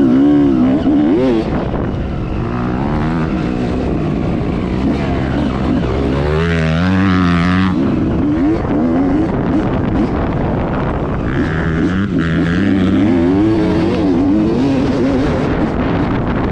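1995 Honda CR250's single-cylinder two-stroke engine revving up and down as the bike is ridden, its pitch repeatedly climbing and falling. Around the middle comes one longer rising rev that drops off abruptly.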